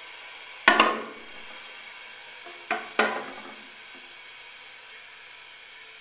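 Porcelain tank lid of a 1974 Kohler Cayuga toilet knocking and clinking as it is lifted off and turned over: two sharp ringing clinks about a second in, then two more around three seconds in.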